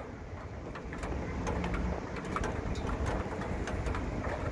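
Steady rain falling on flooded ground, a continuous hiss with scattered drops ticking close by.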